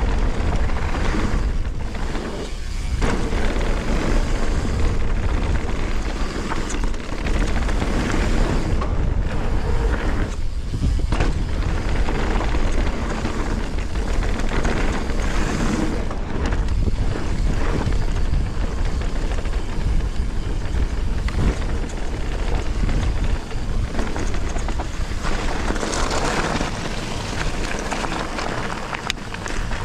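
Wind rushing over an action camera's microphone on a mountain bike riding down a dirt trail, with the low rumble of the bike rolling over the ground.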